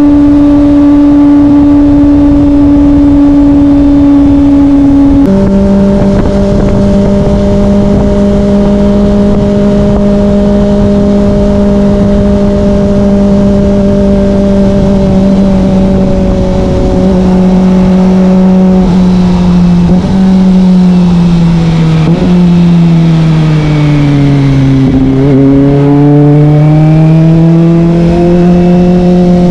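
Kawasaki Ninja ZX-25R's 249 cc inline-four running through a Yoshimura R11 exhaust while riding. It holds a steady high note, drops sharply in pitch about five seconds in, then sinks lower as the bike slows. Near the end it climbs again as the throttle opens.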